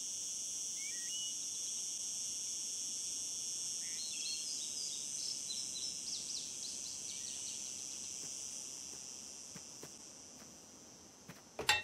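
Forest ambience: a steady, high-pitched insect drone with scattered short bird chirps, fading out over the last few seconds. Near the end come two sharp clicks.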